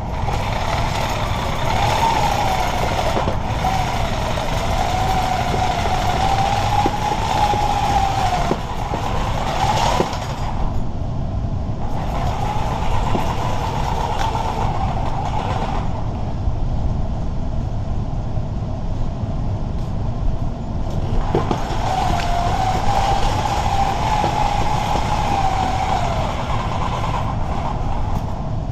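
Reciprocating saw running in three long runs with short pauses between, its motor whine wavering in pitch as the blade cuts packed debris in a drain grate. A steady low rumble sits underneath throughout.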